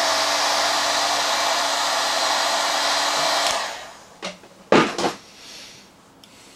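Hot air gun blowing steadily while shrinking heat-shrink tubing over a soldered wire joint, then switched off about three and a half seconds in and winding down. A few sharp clicks and knocks follow.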